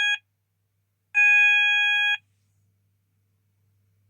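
Apollo XP95 sounder beacon base, turned down low, sounding a steady electronic alarm tone in pulses about a second long. One pulse cuts off just after the start and another sounds about a second in. This on-off pattern is the intermittent alert signal, not the continuous evacuate tone.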